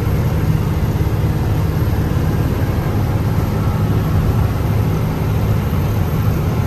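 Goods truck's engine and road noise while driving, a steady low drone.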